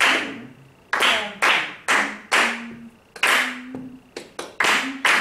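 Hands clapping a rhythm read from a score: about a dozen sharp claps at uneven spacing, with quick pairs and triplets near the end.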